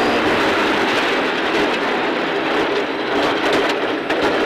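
Inside a Millington-engined Ford Escort Mk2 rally car off the throttle: the engine note drops away at the start, leaving loud tyre and road noise with a rattle of gravel against the car. The level eases slightly as the car slows for a junction.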